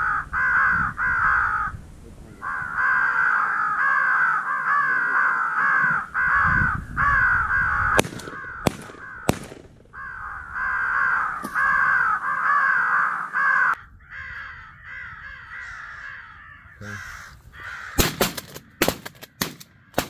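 Crows cawing in a near-continuous, overlapping chorus with a couple of brief pauses, thinning out and quieter after about 14 seconds. A few sharp cracks cut in around 8 seconds and again near the end.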